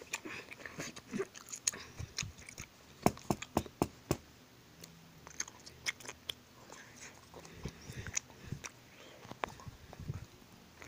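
Irregular clicks, taps and rustles of toys being handled close to the microphone: a toy shark bumping and rubbing against a plush Mickey Mouse, with a cluster of sharp knocks about three to four seconds in.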